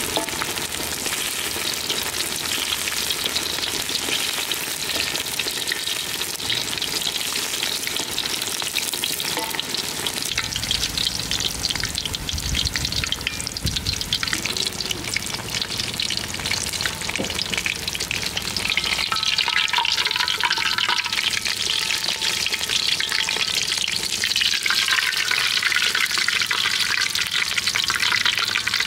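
Deep-frying in a metal wok, with steady sizzling and crackling of hot oil around a rice-coated rat. It grows a little louder about two-thirds of the way through.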